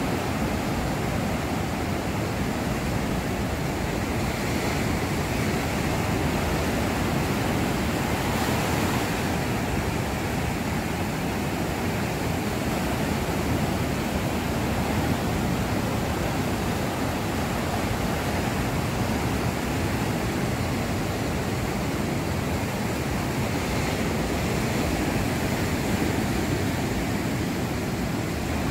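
Ocean waves breaking on a sandy beach, a steady wash of surf noise.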